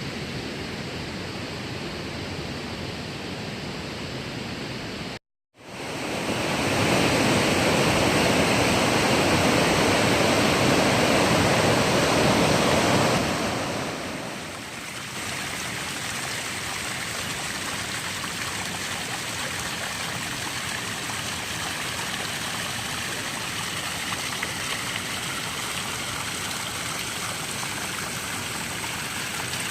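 Steady rushing of a hot-spring stream or small waterfall. After a brief cut about five seconds in, it is louder for several seconds, then settles to a softer, even rush.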